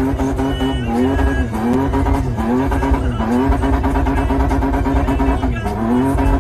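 Car engine heard from inside the cabin, running at high revs, its pitch dipping and climbing back again and again, about once a second, over a low rumble.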